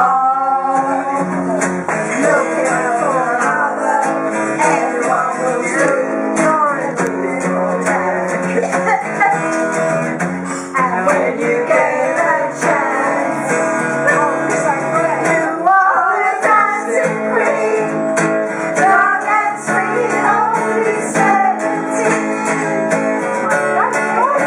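Acoustic guitar strummed in chords, with voices singing along.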